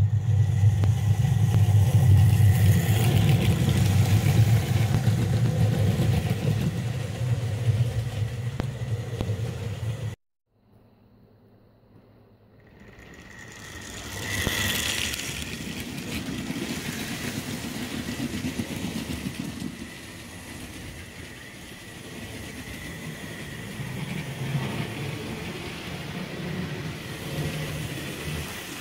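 Model railway trains running on the track: a steady electric motor hum with the rattle of wheels on rail. The sound cuts out about ten seconds in, then swells back as a model steam locomotive hauling a rake of wagons passes close by.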